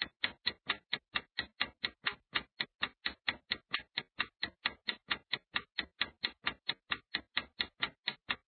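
Clock-ticking sound effect timing a countdown: short, even ticks, about three or four a second.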